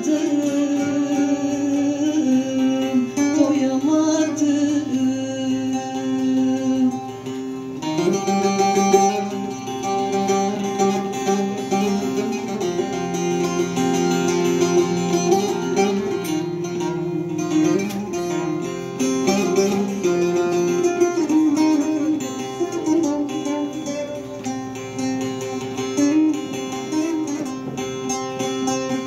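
Bağlama, the Turkish long-necked lute, plucking a folk melody.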